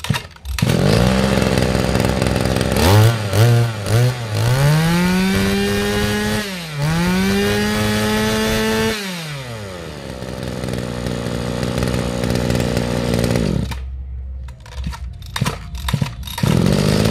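Mitsubishi TL23 two-stroke brush-cutter engine starting and idling, then revved up twice in rising sweeps and dropping back to idle. About three-quarters through it cuts out. After a few short pull-cord tugs it starts again near the end.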